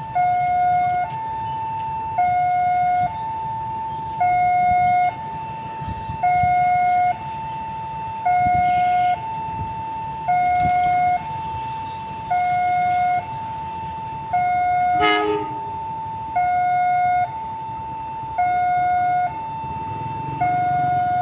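A two-tone warning signal going high-low-high-low, each tone held for about a second, over a low rumble. About three quarters of the way through comes a brief clattering burst.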